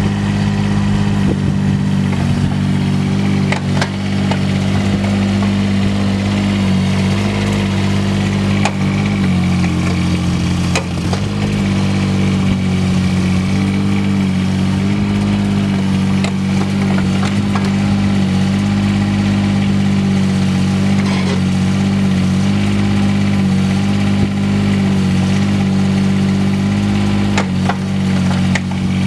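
The three-cylinder Kubota diesel of a 2003 Bobcat 316 mini excavator runs steadily while the boom, stick and bucket are worked. Its note shifts slightly a few times, and a few sharp clanks come through.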